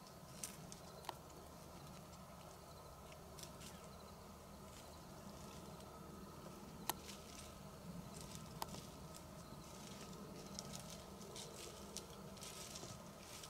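Faint scattered rustling and light ticking, with a few sharper clicks: about half a second in, about a second in, and near seven and eight and a half seconds.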